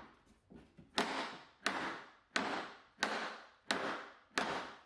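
Rubber mallet knocking a plywood side panel onto its joints: a light tap, then six even blows about 0.7 s apart. The joints are cut too tight and the panel has to be forced into place.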